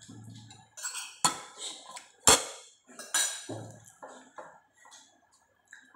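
Cutlery and dishes clinking and knocking at a meal table, a series of sharp clinks with short ringing. The loudest knock comes a little over two seconds in.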